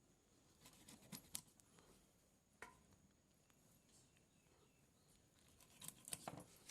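Faint clicks and light scraping, in two short clusters about a second in and near the end, with a single click between.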